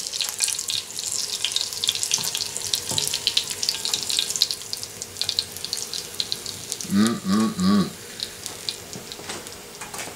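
Pack rat meat frying in hot grease in a cast-iron skillet: a hissing sizzle full of fine pops that thins out as it goes. The sizzle dying down is the sign that the water is cooked out and the meat is done through. About seven seconds in, a short voice-like sound of three quick notes.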